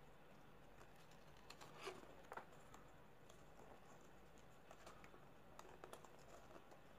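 Faint crinkling and rustling of origami paper being folded and creased by hand, with a couple of slightly louder crackles about two seconds in.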